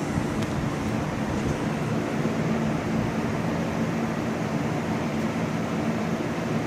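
Steady ventilation noise of an indoor grow room: fans moving air, with a low hum underneath.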